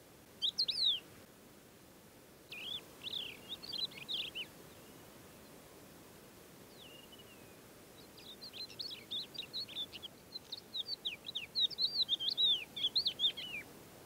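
Thekla lark singing: bouts of quick, high, varied notes, a short phrase first, then a longer one, and the longest and loudest near the end.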